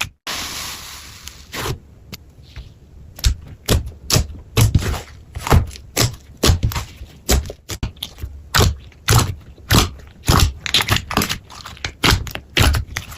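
Slime being pressed and worked by hand, giving a string of sharp clicking pops, about two a second, after a brief hissy tearing sound at the start.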